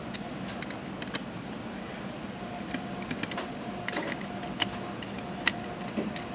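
Screwdriver backing out the small screws from the OSSC's acrylic sandwich case: scattered light clicks and ticks of the tool and screws, with a few sharper clicks in the second half.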